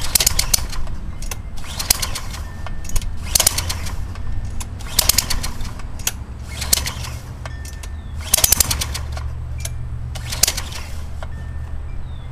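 Karcher 4 hp gas pressure washer with a steady low engine hum, broken by short, loud rasping bursts about every one and a half to two seconds; the hum strengthens about eight seconds in.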